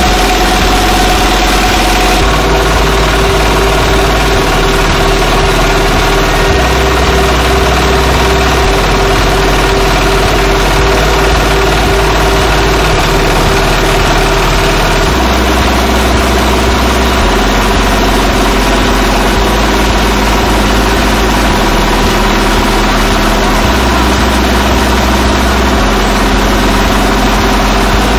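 Nishikawa single-cylinder diesel engine running steadily at a constant speed, driving a rice mill that is hulling grain.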